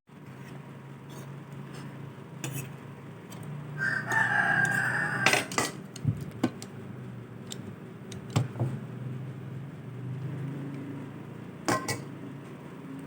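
A rooster crowing in the background for about a second, some four seconds in, over a low steady hum, with a few sharp clicks of a spoon against a bowl.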